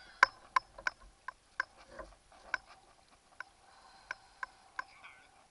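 A series of sharp, irregular clicks and taps, about ten in all, from fishing tackle being handled on a plastic kayak; they come thickest in the first second or so.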